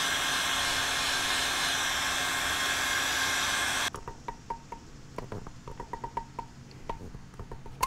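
Heat gun blowing steadily at the end of a rubber crankcase-vent hose to soften it, switched off abruptly about four seconds in. Then scattered small clicks and short squeaks as locking pliers grip and work the plastic fitting out of the hose.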